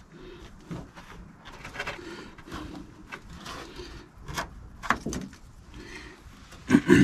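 Hands handling a pickup's tailgate and its rubber bed seal: scuffing, rustling and scattered knocks, with a loud pair of clunks near the end.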